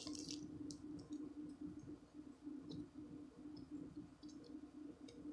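Faint, scattered clicks from hands handling a soft squishy toy, over a steady low hum.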